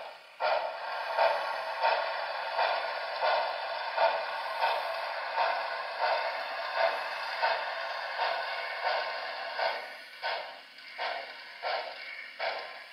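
Sound decoder of a model steam locomotive playing exhaust chuffs through its small speaker, thin and tinny. The beat is even at about one and a half chuffs a second, then quickens to about two a second near the end.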